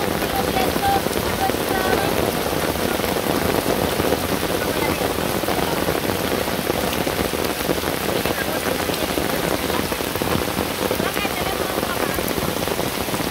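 Rain falling steadily: an even, continuous hiss of drops.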